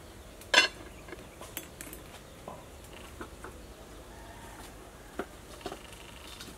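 A single sharp metal clank about half a second in, from a metal cooking-pot lid being handled with a cloth, followed by a few light knocks and taps.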